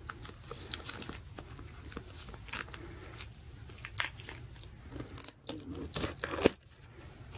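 Hands handling a Blu-ray steelbook case: scattered crinkles and small clicks, with one sharp click about six and a half seconds in.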